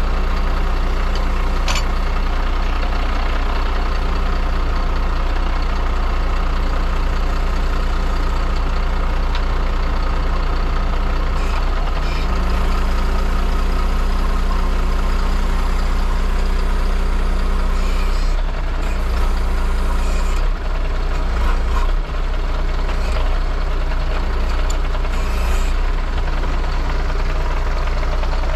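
Truck diesel engine running steadily to drive a Hiab 102 loader crane's hydraulics. Its note steps up and down several times in the second half as the crane is worked, with a few faint clicks.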